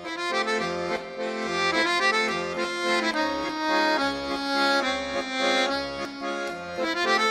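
Instrumental intro music: sustained melody notes over a low bass pulse about once a second.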